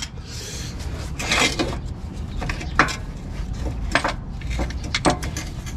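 Irregular light metallic clinks and knocks of hand tools and car parts being handled during motor mount removal, with one sharper knock near the middle.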